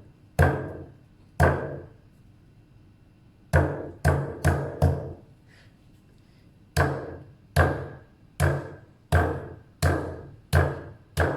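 Ginger root being bruised by hard blows against a hard surface, struck about a dozen times with a short ring after each hit. There are two blows near the start, a quick group of four a few seconds in, then a steady run of about one blow every 0.7 s.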